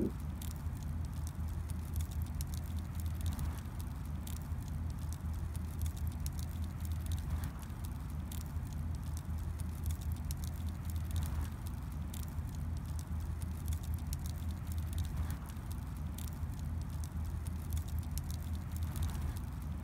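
Wood fire in a fire pit crackling and popping in irregular snaps, over a low steady rumble.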